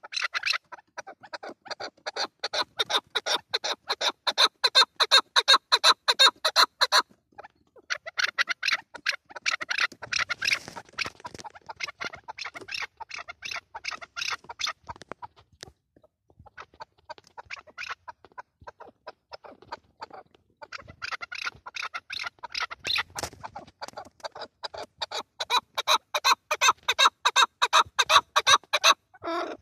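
Chukar partridge calling: fast, repeated clucking notes in three long bouts that swell to a loud rapid chatter, with short pauses about 7 and 16 seconds in.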